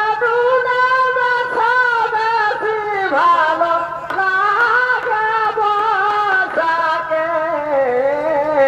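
Chhau dance music: a shehnai plays a long, ornamented melody, holding and bending its notes almost without a break, over steady rhythmic drumming.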